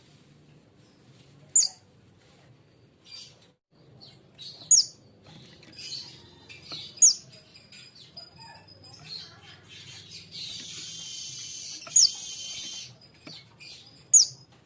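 A young king konin bird, a fledgling, chirping: five loud, sharp notes, each sliding quickly down in pitch, a few seconds apart, with softer chirps between them. Between the fourth and fifth notes there is a rushing hiss lasting about two and a half seconds.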